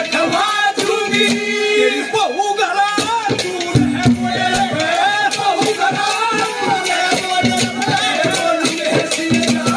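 Live Haryanvi ragni music: a male singer's voice with drum and keyboard-instrument accompaniment, with steady percussion strokes and held, gliding melodic notes.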